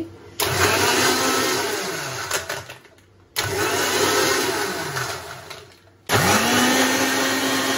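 Electric mixer grinder (mixie) blending ice cubes, milk and Oreo biscuits, switched on in three short runs. Each of the first two fades before the motor is started again; the third starts with a rising whine and then holds steady.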